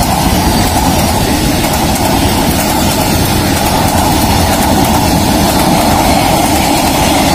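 Covered boxcars of a freight train rolling past: a loud, steady noise of steel wheels running on the rails.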